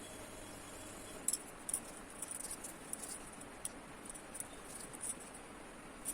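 Paintbrush working on watercolour paper: irregular soft scratchy dabs and strokes, about a dozen, over a faint steady hiss.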